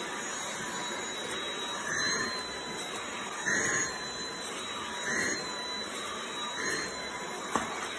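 Cordless stick vacuum cleaner running steadily with a motor whine as its floor head is pushed over a lying cat's fur. The sound swells briefly about every second and a half, and there is one sharp click near the end.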